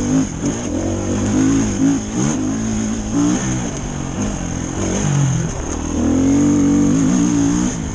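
Dirt bike engine under way on a dirt trail, its note rising and falling as the throttle is opened and eased off, then holding steadier for a couple of seconds near the end.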